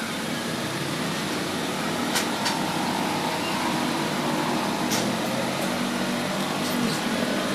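Steady machine-like noise with faint low tones, broken by a few light sharp ticks about two seconds in, around five seconds in and near the end.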